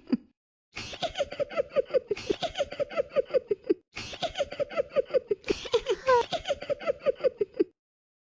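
High-pitched cartoon giggling from a talking fairy character: fits of rapid 'hee-hee' pulses with brief silent gaps between them.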